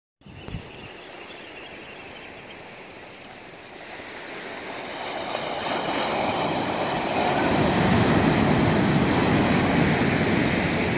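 Ocean surf: waves breaking and washing up the beach, the rush building from about four seconds in to its loudest near the end.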